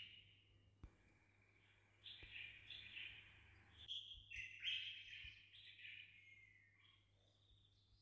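Faint, high bird chirping in short bursts, with a quiet gap between them.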